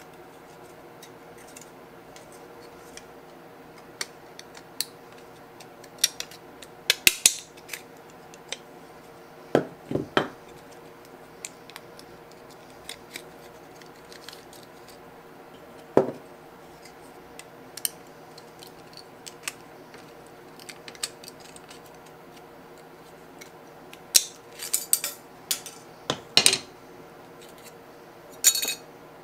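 Small metal clicks, taps and short scrapes from a water pressure gauge being taken apart by hand with a pick, its needle and dial face worked off the brass movement. The clicks come scattered, with louder clusters about a quarter of the way in and again near the end, over a faint steady hum.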